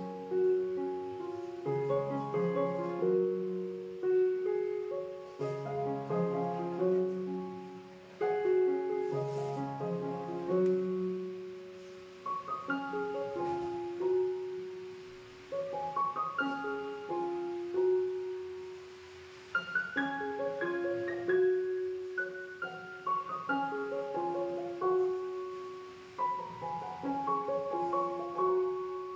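Background solo piano music: a melody played over low chords.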